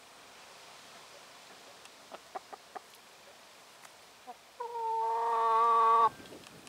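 A bird's call, most like domestic fowl: one long held note of about a second and a half that grows louder and stops abruptly, after a few faint clicks.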